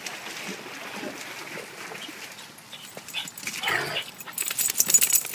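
A dog gives a short whine about three and a half seconds in, over scuffing footsteps. A burst of crackling rustle follows near the end.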